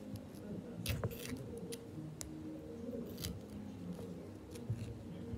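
A coin scraped against a rock in a few short, scratchy strokes, testing whether the rock is soft enough to be scratched.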